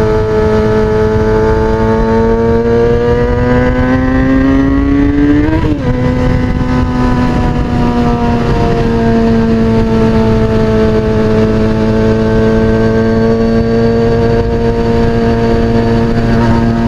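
2003 Kawasaki ZX-6R's 636 cc inline-four through an aftermarket MotoGP-style exhaust, pulling under acceleration with the pitch rising steadily. About five and a half seconds in it drops at an upshift, then runs at a nearly steady cruise.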